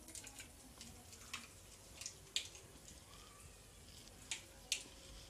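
Mustard seeds popping in hot oil in a kadai: faint, scattered sharp pops at irregular intervals. This is the tempering spluttering, the sign that the oil is hot enough.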